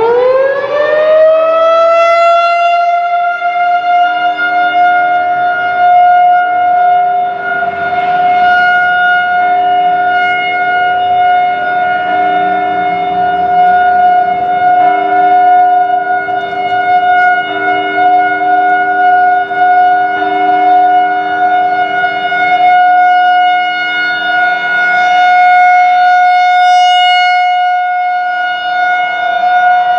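Federal Signal 2001-SRNB outdoor tornado warning siren winding up at the start of a test: its pitch climbs over about two seconds into a steady wail, which then holds, swelling and fading in loudness.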